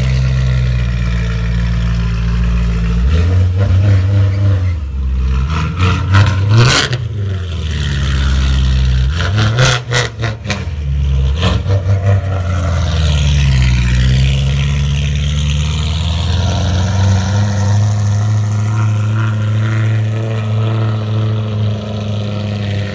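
Supercharged S65 4.0-litre V8 of a BMW E92 M3 through a loud aftermarket Innotech exhaust, idling and then revved hard a few times, the pitch sweeping up and falling back. It then settles into a steady engine note as the car drives off.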